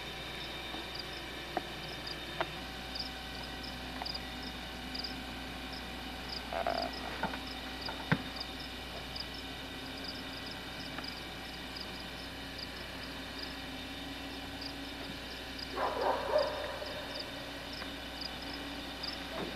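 Frogs calling: a steady run of short, high chirps repeating a few times a second over a faint steady hum, with two louder bursts, one about a third of the way in and one near the end.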